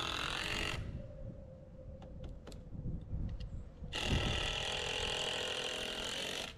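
Power driver run in two long trigger pulls, stopping abruptly under a second in and starting again about four seconds in, with a few sharp clicks in the pause between. This is typical of a fastener being driven into timber.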